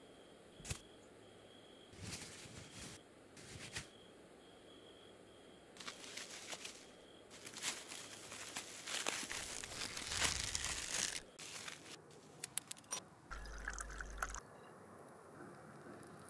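Cord rubbing and rustling against a wooden stick as it is wrapped and knotted, with scattered small clicks and taps. A short steady hiss comes about three-quarters of the way through.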